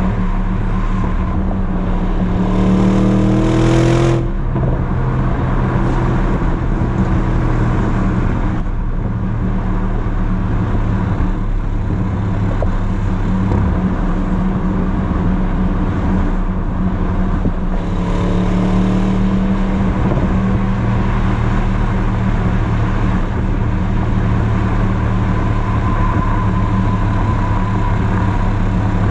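Audi RS Q8's twin-turbo V8 exhaust, with its large resonator deleted, running steadily at highway speed, heard close to the tailpipes over road noise. About two seconds in it rises in pitch under acceleration and cuts back sharply about four seconds in; it rises again briefly around eighteen seconds in.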